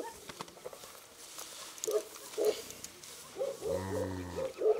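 A yak grunting: short, repeated grunts, then one longer, deeper grunt about four seconds in.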